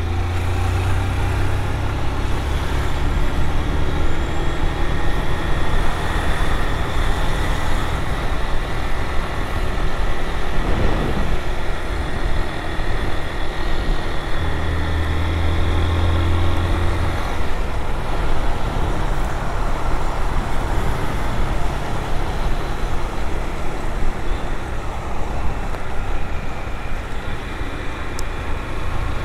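Single-cylinder engine of a Honda CG 160 Fan motorcycle running at riding speed through city traffic, with the steady noise of surrounding cars and trucks. A deeper engine drone swells for a few seconds about halfway through.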